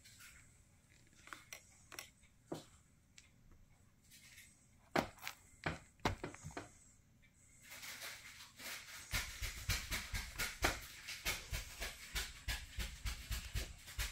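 Handling noise from a phone being moved: scattered clicks and knocks, then from about eight seconds in a dense run of rustling and crackling with low thumps.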